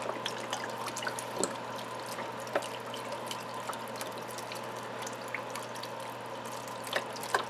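Chicken broth pouring from a carton into a full pot of soup: a steady trickling pour with scattered drips and splashes, over a faint steady hum.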